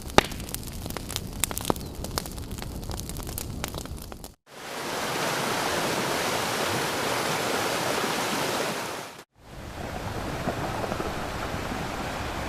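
Nature ambience sound effects cut one after another, with a short gap of silence between each: first a rushing noise dotted with many sharp clicks and crackles, then a steady, even rush of falling water or rain about four seconds in, then a lower, rougher rush of surf or wind about nine seconds in.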